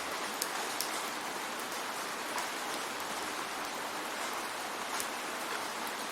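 Steady rain hiss with a few sharp drop ticks scattered through it.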